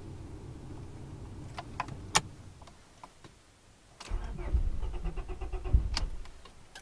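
Honda Prelude starter cranking the engine for about two seconds in a rhythmic churn, then stopping without the engine catching, after a steady low hum and a few clicks earlier on. A no-start the owner traced to a faulty distributor.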